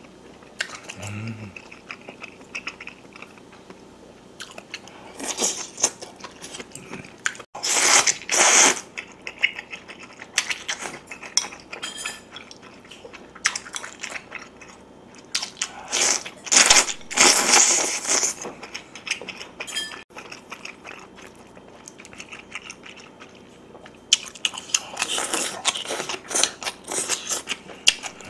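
Close-miked chewing and wet mouth smacking of soft soy-braised pork back ribs, coming in bursts, the loudest about 8 and 17 seconds in.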